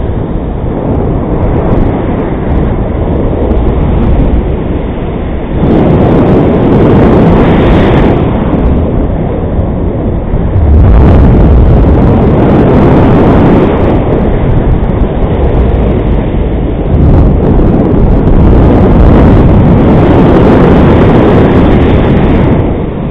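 Strong wind rushing over the microphone of a camera mounted on a paraglider's riser in flight, a loud low rushing noise that swells and eases in gusts every few seconds.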